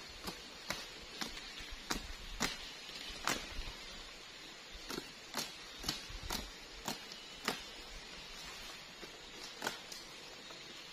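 Sharp chopping strikes of a blade cutting sugar palm fronds, about one every half second, with two short pauses.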